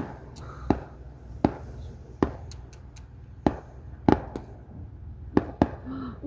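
A series of about ten sharp pops or knocks. The first few come evenly about three-quarters of a second apart, then they fall irregularly, with a close double about four seconds in.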